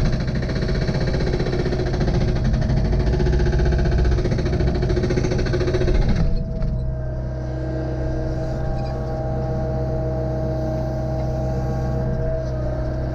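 Excavator diesel engine running, with a steady hydraulic whine. It works harder and louder for the first six seconds, then eases off and settles to a steady run.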